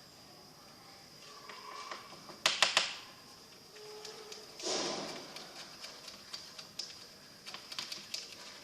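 Small handling noises: a quick run of sharp clicks about two and a half seconds in, then a short swish about two seconds later, with scattered light ticks over a faint steady high whine.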